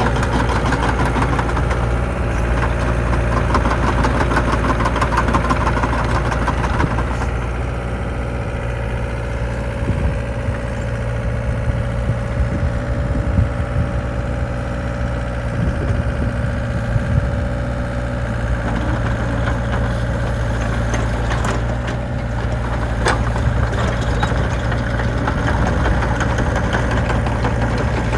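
Diesel engine of a Volvo EC60C midi excavator running steadily at idle. The sound is a little brighter for the first seven seconds or so, then settles.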